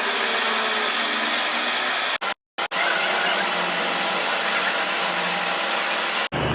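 Lathe running while boring a solid rod: steady, dense machining noise, broken by a brief dropout a little over two seconds in and an abrupt change near the end.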